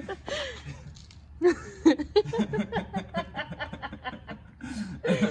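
People laughing and chuckling, with bits of talk mixed in.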